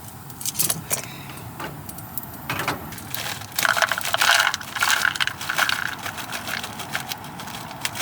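Bacon frying in a pan: a steady sizzle with many sharp pops and crackles, swelling louder for a couple of seconds around the middle.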